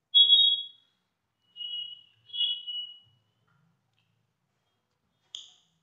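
A few short, high-pitched squeaks with silence between them: a metal spoon scraping across a ceramic plate.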